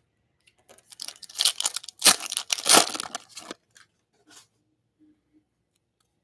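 Wrapper of a pack of football trading cards being torn open and crinkled by hand: a dense crackle lasting about two and a half seconds, then a few light rustles.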